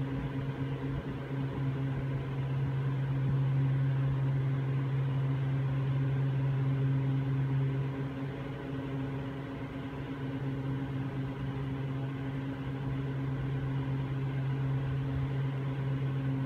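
Steady low mechanical hum of an aerial ropeway's machinery while a cabin runs on the line toward the station. The deepest part of the hum eases off about halfway through.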